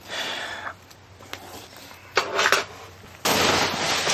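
Rummaging through a box of packing material: short rustles and clicks, then a loud, continuous rustling that starts suddenly about three seconds in.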